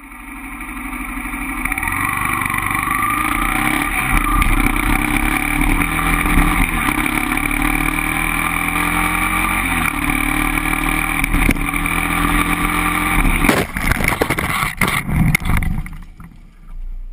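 Motorcycle engine running under way, its pitch slowly rising and shifting in steps as it changes gear. About thirteen seconds in the steady note breaks up into a series of knocks as the bike goes down, and the engine sound dies away near the end.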